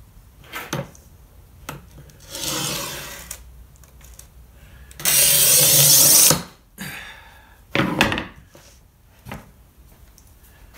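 Glass cutter scoring a sheet of stained glass along a wooden straightedge: a scratchy hiss about two seconds in, and a louder, longer one lasting over a second from about five seconds in, with a few short sharp knocks of glass and tools on the bench.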